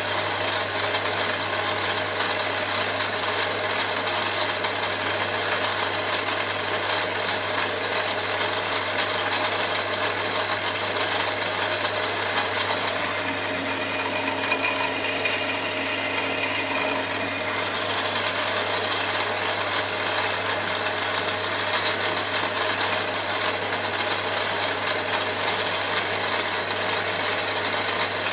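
Milling machine running steadily with its spindle turning a small cutter. For about four seconds near the middle, the cutter feeds into the aluminium block and the tone of the running machine changes, then it settles back to the same steady sound.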